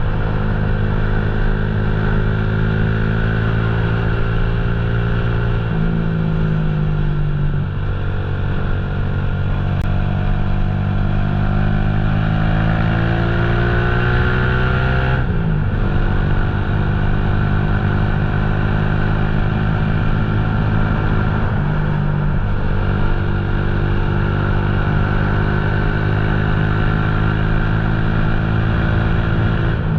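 Motorcycle engine running under way. Its pitch climbs steadily for several seconds and then drops suddenly, as on a gear change, about halfway through, with smaller pitch changes near the start and about two-thirds of the way in.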